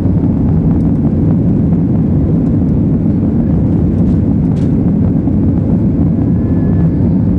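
Ryanair Boeing 737 jet engines running during takeoff: a steady, loud low rumble.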